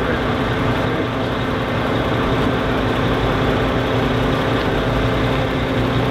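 Crane truck's diesel engine running steadily, driving the hydraulics of its truck-mounted loader crane.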